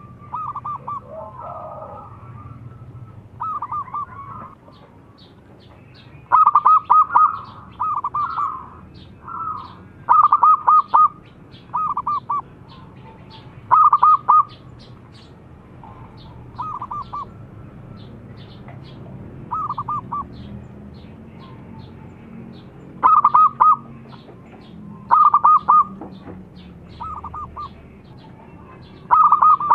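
Zebra dove (perkutut) cooing: about a dozen short bursts of quick, ringing notes, repeated every second or few, some much louder than others.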